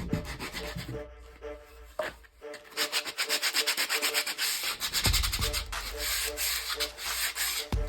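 Sandpaper rubbed by hand over oak in quick back-and-forth strokes, sanding a glued dowel-plugged joint flush. The strokes are lighter about a second in and run fast and steady from about three seconds in, with a few light knocks.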